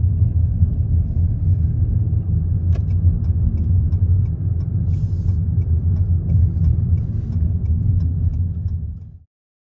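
Steady low rumble of a car's road and engine noise heard from inside the moving car, with faint light ticks over it. It cuts off suddenly near the end.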